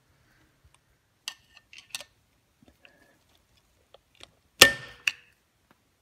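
A screwdriver and steel parts clicking lightly against a DOHC cylinder head's valvetrain a couple of times, then a sharp, ringing metal clink about four and a half seconds in, with one more click just after.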